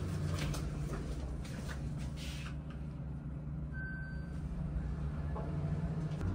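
Elevator with a steady low hum throughout, and one short electronic beep from the car's control panel about four seconds in, as a button is pressed.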